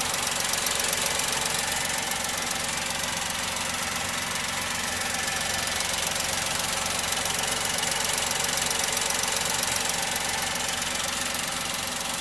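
Honda N-VAN's 660cc naturally aspirated three-cylinder petrol engine idling steadily, an even rapid ticking running through its sound.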